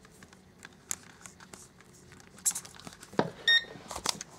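Clicks and rustling of hands handling a battery and plugging its lead into a small RC helicopter, with one short electronic beep about three and a half seconds in.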